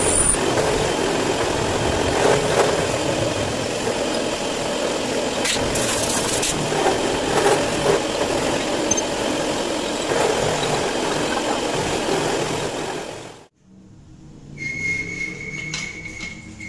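Milling machine cutting a welded aluminium motorcycle cylinder head with an end mill: a loud, steady, dense machining noise with a few sharper scrapes. About 13 seconds in it stops abruptly, leaving a much quieter background with a faint steady high tone.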